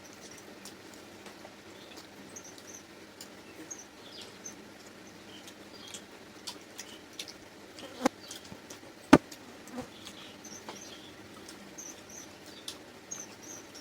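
Eating sounds: soft scattered clicks and smacks of chewing luchi with chicken curry, with small high squeaks. There are two sharper knocks, like a hand or dish against a plate, about eight and nine seconds in, the second one loudest.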